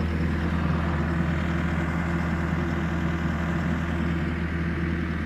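Bobcat E88 mini excavator's diesel engine running steadily with an even low hum.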